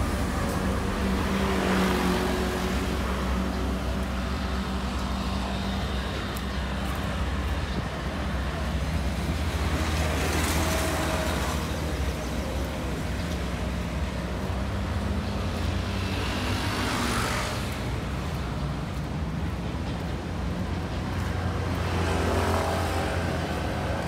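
Road traffic on the street beside the path: a steady low engine rumble, with vehicles passing about two seconds in, around the middle, and twice near the end.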